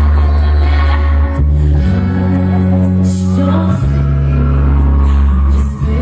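Female pop vocal group singing live into microphones over a heavy sustained bass line; the bass note changes about two seconds in and again near four seconds.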